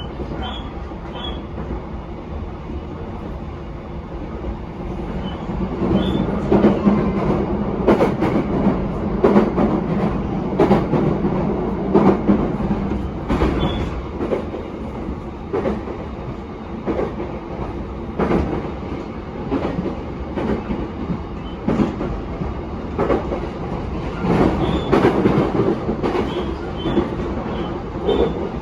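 JR East E233-7000 series electric train running on the freight-line tracks: a steady rumble with irregular wheel clacks over the rail joints, growing louder about six seconds in.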